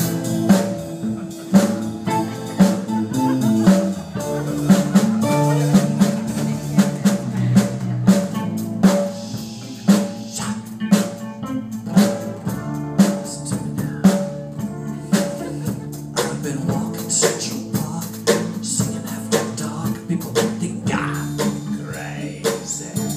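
Live band playing an instrumental passage, a drum kit keeping a steady beat of bass drum and snare under pitched instruments.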